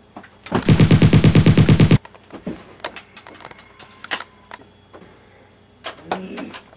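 A burst of rapid automatic gunfire, about ten shots a second for a second and a half, cutting off abruptly. Scattered faint clicks and knocks follow, with a brief voice near the end.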